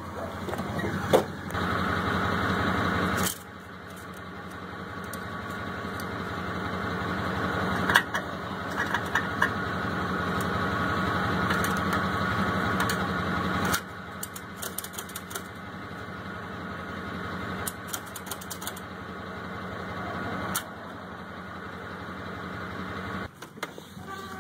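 A vehicle engine running steadily with a mechanical hum, with scattered clicks and clanks. The level jumps abruptly several times.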